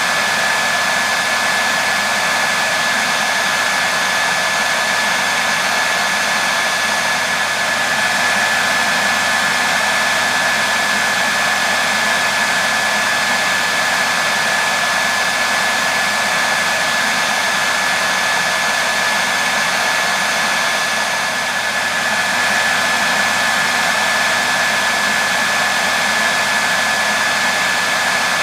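Hair dryer running continuously at a steady speed: an even rushing air noise with a thin steady whine on top.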